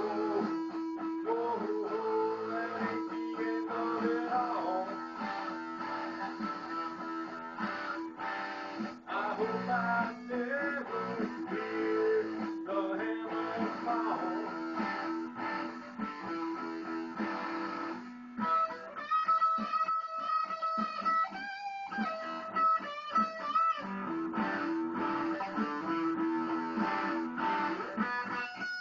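Electric guitar played solo: an instrumental with held notes and changing riffs. About two-thirds of the way through it moves to higher lead notes with a wavering pitch, then returns to lower riffing.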